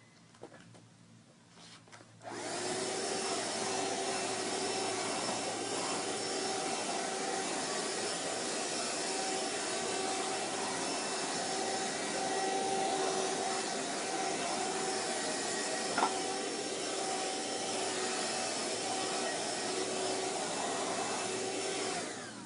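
A vacuum cleaner switches on about two seconds in and runs steadily, a loud even rush with a steady whine, then stops just before the end.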